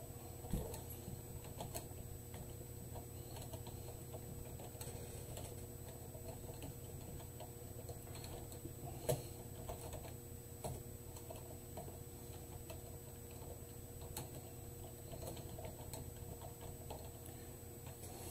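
Typing on a computer keyboard: faint, irregular keystrokes with one louder click about nine seconds in, over a steady faint electrical hum.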